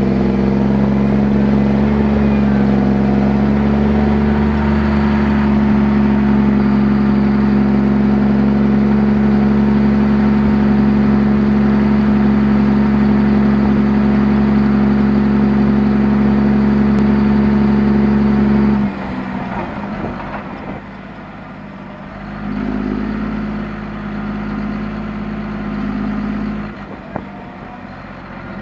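John Deere 7230R tractor's six-cylinder diesel engine running at a steady pitch under load, heard from inside the cab. About 19 seconds in the sound suddenly drops to a quieter, uneven engine sound.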